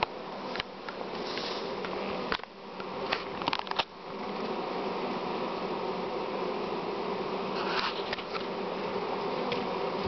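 Honeybee colony in an open hive buzzing as a steady hum. A few sharp clicks and knocks fall between about half a second and four seconds in.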